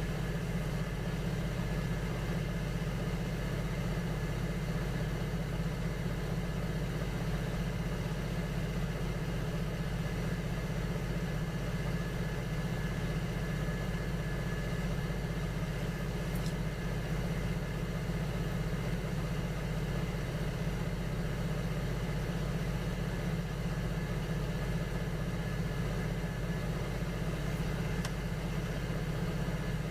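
Electric potter's wheel motor running with a steady, even hum, with two faint clicks partway through.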